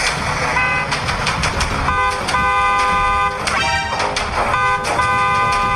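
Car horn held in two long blasts, the first about two seconds in and the second near the end, over a steady low rumble of traffic.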